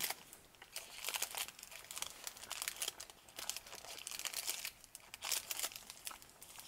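Crinkly plastic-and-foil snack-bar wrappers being handled, rustling in irregular bursts.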